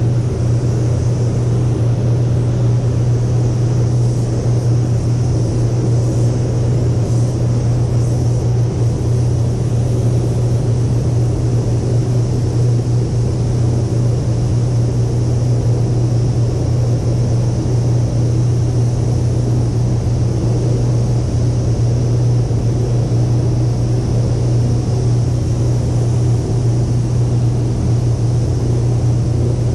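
Automotive paint spray booth's ventilation fans running with a steady low hum.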